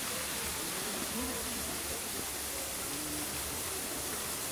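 Steady hissing outdoor ambience with faint voices of people talking in the distance.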